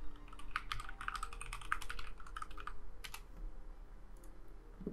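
Typing on a computer keyboard: a quick run of key clicks through the first three seconds, then a few scattered keystrokes.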